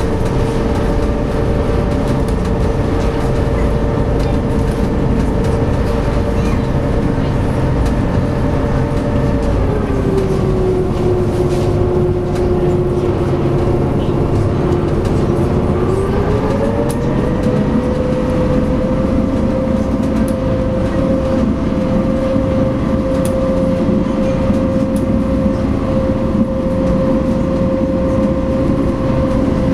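SeaBus passenger ferry's engines running with a steady drone. About ten seconds in the pitch drops, holds lower for a few seconds, then rises to a slightly higher steady pitch than before, as the engine power is eased off and brought back up.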